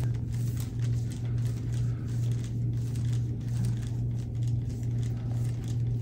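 Soft rubbing and brushing of hands working over a person's back, a few irregular strokes, over a steady low hum.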